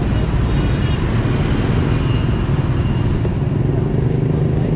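Riding a Yamaha 125cc scooter in city traffic: its engine running steadily under road and wind noise, a continuous, even rumble.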